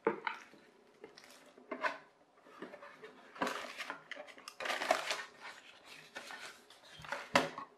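Hands handling a birdhouse and its packaging: plastic bag and paper rustling and crinkling in irregular bursts, with light knocks of the birdhouse being turned over. The folded instruction sheet is pulled out from inside it.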